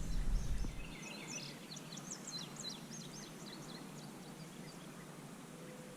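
A small bird chirping: a quick string of short, high notes from about one to three seconds in, over faint steady outdoor background noise. A low rumble in the first second stops abruptly.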